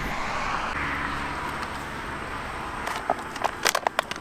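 Highway traffic going by as a broad rush that swells and then fades. From about three seconds in it is overtaken by a run of sharp crinkles and clicks as something is handled close to the microphone.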